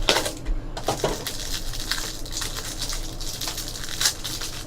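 Trading cards and pack wrappers being handled: light rustling with scattered small clicks, a sharper one about four seconds in.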